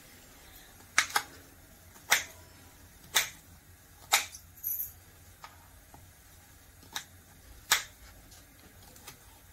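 Kitchen knife chopping bitter gourd on a wooden cutting board: sharp taps of the blade striking the board, about ten in all, roughly one a second and unevenly spaced.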